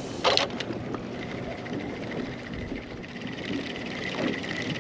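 Spinning reel being cranked to retrieve a lure, a fine steady whirring buzz, over wind and water noise; a short sharp noise just after the start.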